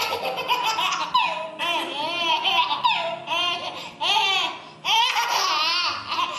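A baby laughing hysterically: a long string of high-pitched belly laughs that break off briefly about four and a half seconds in, then start again.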